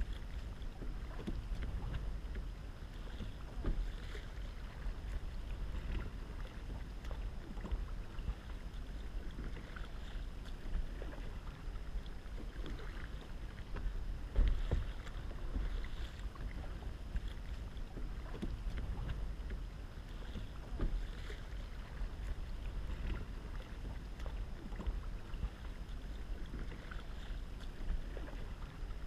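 Kayak paddle dipping and splashing in the water with each stroke, every second or two, over a low rumble of wind on the microphone. One stroke about halfway through is louder than the rest.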